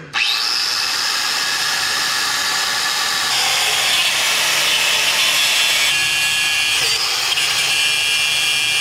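Corded electric grinder spinning up and grinding metal on a 2017 Ford Mustang GT's engine to clear room for a supercharger. A steady high whine that changes pitch a few times as the tool bears on the metal, with two brief dips in the latter half.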